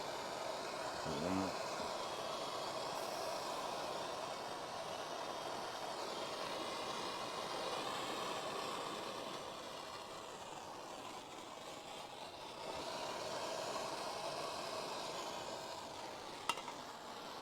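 Gas torch flame burning steadily while solder is run into a heater core's tank seam. There is a sharp click near the end, and then the flame cuts off abruptly.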